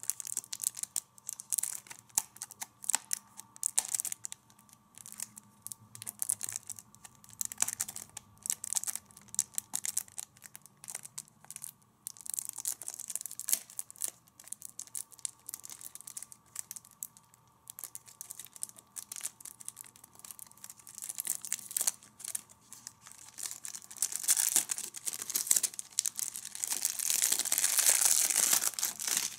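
Fingernails picking and scratching at the plastic shrink wrap along the top edge of a DVD case, making scattered short crackles and clicks. In the last few seconds the wrap is pulled off and crumpled, a denser, louder plastic crinkling.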